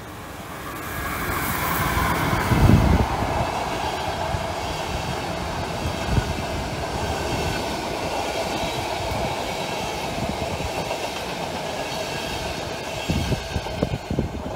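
České dráhy class 193 (Siemens Vectron) electric locomotive hauling a rake of passenger coaches past: the running noise swells as the locomotive goes by two to three seconds in, then the coaches roll past in a steady rumble. Wheel clacks over rail joints come near the end.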